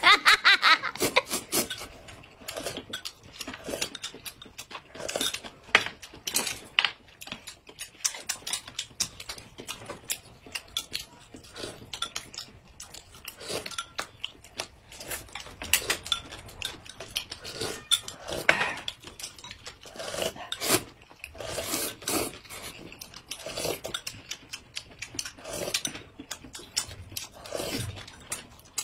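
Two people eating: loud slurps of noodles and sips of thick corn soup from glass cups, with chewing and small clinks of spoon and chopsticks against glass and bowls. The loudest slurp comes right at the start.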